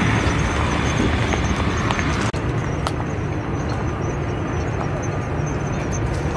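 Steady outdoor background noise, a low rumble with a hiss above it and a few faint clicks. The sound changes at a cut about two seconds in, where the upper hiss drops away.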